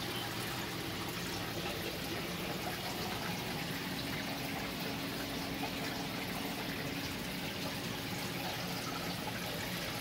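Steady running and trickling water from a saltwater aquarium's circulation and filtration.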